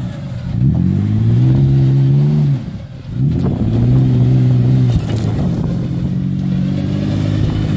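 Jeep engine revving under load as it crawls up a rocky ledge with a line pulling from the front. The revs climb, drop off about two and a half seconds in, pick up again, then hold steady.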